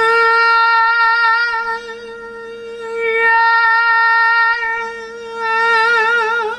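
A man singing one sustained high note, not warmed up. He holds a single pitch that swells louder three times, moving from a slightly airy, low-volume falsetto into a fuller mixture of head voice and chest voice. The note wavers with vibrato near the end.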